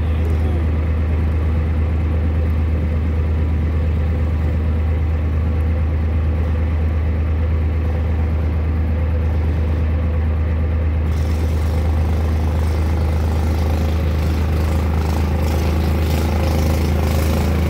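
Small off-road engines running: a steady, deep engine idle close by, with a child's mini bike and an ATV running on the trail. The mini bike gets a little louder in the last couple of seconds as it rides toward the listener.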